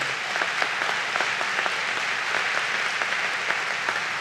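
Large audience applauding steadily, a dense patter of many hands clapping.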